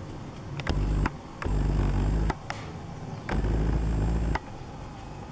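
Low rumble buffeting the camera microphone, switching on and off abruptly in stretches of about a second, with clicks and a thin high whine in short stretches as the camcorder zooms in.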